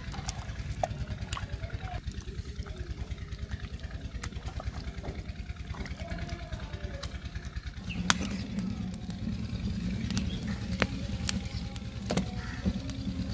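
An engine running steadily in the background with a low, rapid chugging. From about eight seconds in a deeper hum grows louder under it, and a few sharp clicks stand out.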